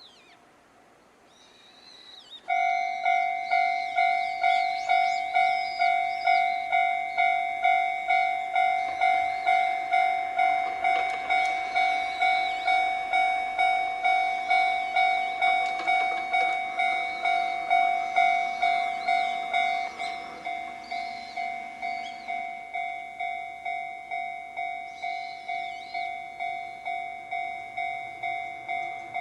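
Japanese railway level-crossing electronic alarm in the 'Chichibu' tone. It starts about two and a half seconds in and rings at an even rate of about two strikes a second. About twenty seconds in it drops to a quieter level and keeps ringing.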